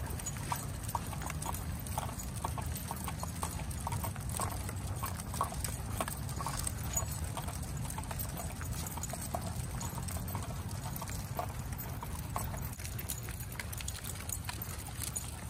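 Footfalls of a large pack of leashed dogs walking on asphalt: a rapid, irregular run of many small clicks from their claws and paws, over a steady low rumble.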